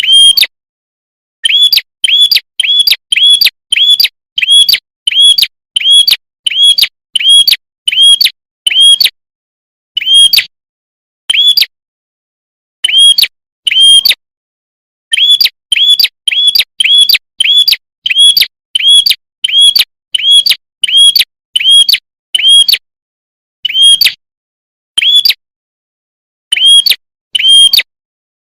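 Lure-call recording of a prenjak kepala merah (red-headed prenjak): loud, clear, high chirps repeated about two to three a second in runs, broken by short pauses.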